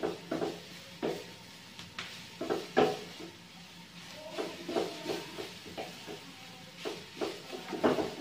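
Wooden spatula stirring and tossing shredded cabbage in a non-stick wok, irregular scraping strokes about once or twice a second, over a light sizzle of stir-frying on a high flame.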